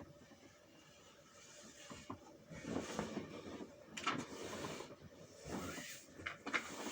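Irregular handling noises: rustling and scraping with scattered clicks, getting busier a few seconds in.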